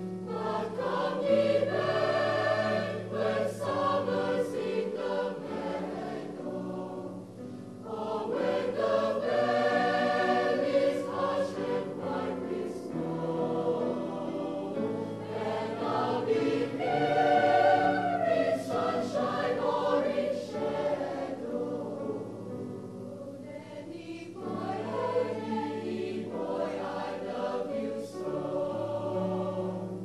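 Mixed choir of women's and men's voices singing in harmony, held chords rising and falling in loudness phrase by phrase.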